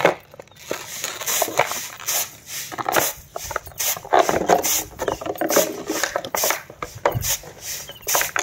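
A German shepherd chewing and pawing a plastic drink bottle on concrete, the plastic crackling and crunching irregularly with scrapes against the ground.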